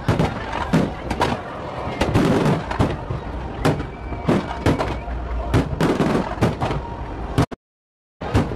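Aerial fireworks bursting overhead in a rapid, irregular string of bangs and crackles over a steady low rumble. The sound cuts out completely for a moment near the end.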